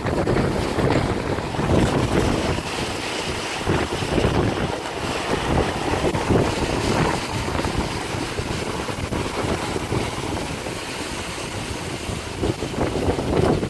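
Strong gusty wind buffeting the microphone, over the hiss of car tyres passing on a rain-soaked road.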